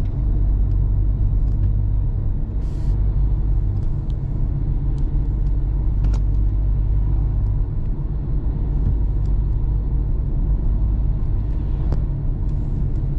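Car driving along a town street, heard from inside the cabin: a steady low rumble of engine and tyre noise.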